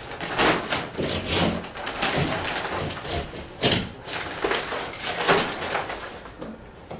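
Irregular scraping and knocking sounds of hand repair work, coming in short uneven bursts.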